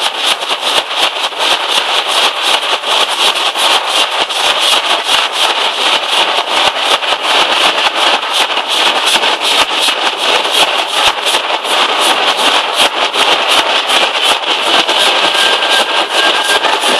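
Nashik dhol troupe drumming: many large barrel drums struck together in a fast, unbroken rhythm, loud and dense.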